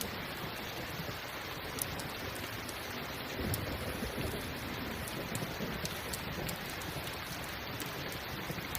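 Steady rain falling, with a few sharp crackles from a campfire scattered through it. A low rumble of distant thunder swells up about three and a half seconds in.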